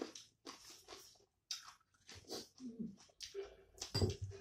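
Close-up chewing and wet mouth noises of people eating rice and curry with their hands, in short irregular bursts.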